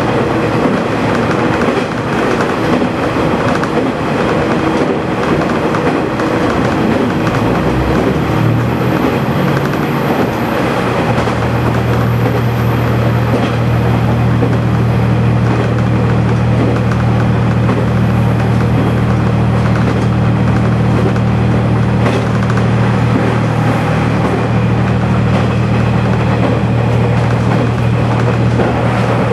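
KiHa 120 diesel railcar running along the track: steady wheel-on-rail noise with the diesel engine underneath. About eight seconds in the engine note climbs, and from about eleven seconds it settles into a strong steady drone that holds to the end.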